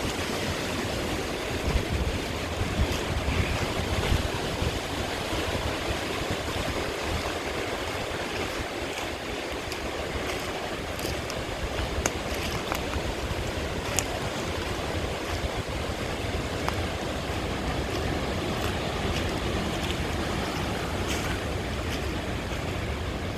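Hurricane wind rushing steadily, with gusts buffeting the microphone as a low rumble and a few light clicks scattered through it.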